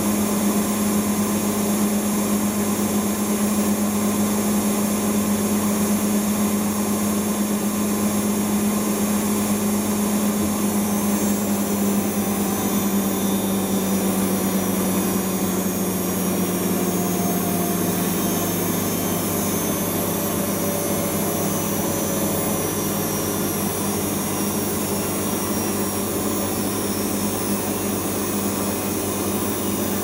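Siemens Serie IQ WIQ1430 washing machine on a high-speed spin during its cotton final spin: a steady motor whine over the rush of the spinning drum. From about twelve seconds in, the whine sinks slightly in pitch and softens a little as the spin speed eases.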